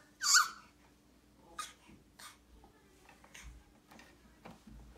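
Baby's short, loud squawk, a pitched cry with a breathy edge, about a third of a second in, followed by a few faint clicks.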